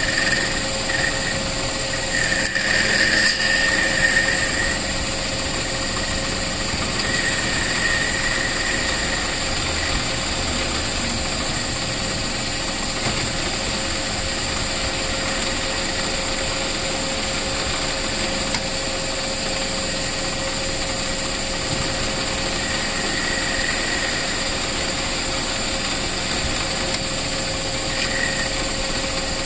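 Metal lathe running steadily, its chuck spinning a pool cue shaft, with an even mechanical hum and a constant tone. A higher-pitched whine swells briefly a few times, around 2 to 4 seconds in, about 7 to 8 seconds in, and again near the end.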